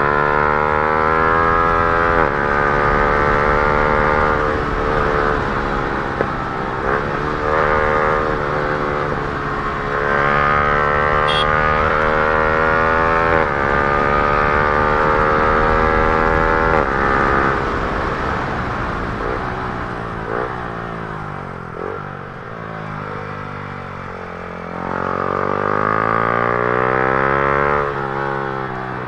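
Yamaha R15 M's single-cylinder engine through an Akrapovic R1 full-system exhaust, pulling hard through the gears. The note climbs and drops back at each upshift, several times over. Past the middle the revs fall away as the bike slows, then climb again near the end.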